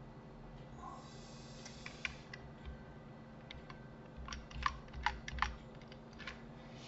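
Faint clicks of a computer keyboard and mouse in use, a few scattered, then a quick run of about four louder clicks in the middle, over a low steady hum.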